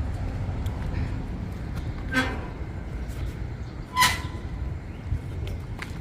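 A small Pomeranian–Spitz mix dog barking twice, two short high yaps about two seconds apart over a steady low rumble of street traffic.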